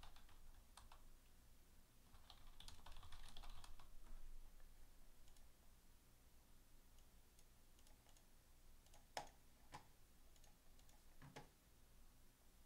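Faint typing on a computer keyboard: a quick run of soft key taps, then a few separate clicks.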